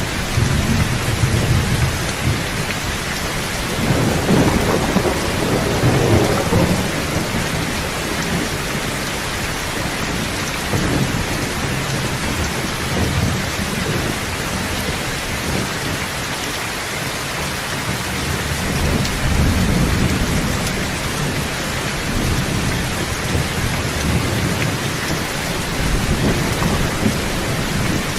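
Steady heavy rain hissing evenly, with low rumbles of thunder that swell and fade several times, strongest a few seconds in and again near the middle and the end.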